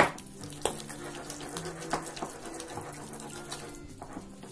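A hand beating thick, wet ground moong dal batter in a glass bowl, with squelching, sloshing strokes and a few sharper slaps, whipping air into the batter to make the vadas soft.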